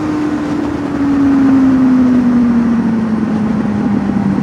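Honda motorcycle engine heard from the rider's seat, its note falling steadily as the rider eases off after a short burst of acceleration, over steady wind noise.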